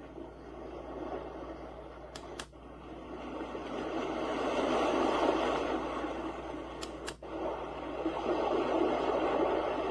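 White-noise sound machine playing a steady rushing noise, which dips with a click twice, about two and a half and seven seconds in.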